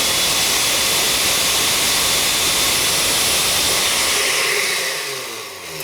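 Countertop blender running at high speed, blending a liquid mixture of herbal infusion and oils. Near the end it is switched off and the motor winds down with a falling whine.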